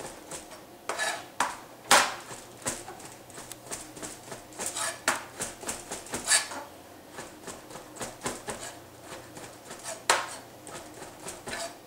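Large kitchen knife slicing green olives on a plastic cutting board: a run of quick, irregular taps of the blade on the board, with a few louder knocks.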